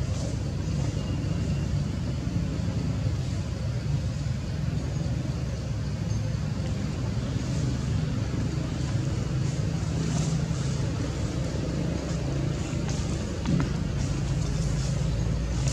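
Steady low rumble of outdoor background noise, with faint high ticks now and then.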